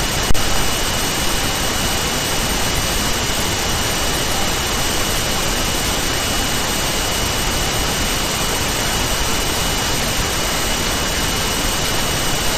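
Steady hiss of recording noise, like static, with a faint high steady whine running through it and a single click just after the start.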